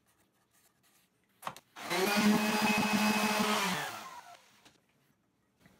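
Random orbit sander switched on with a click, running steadily with a high whine for about two seconds, then winding down as it is switched off.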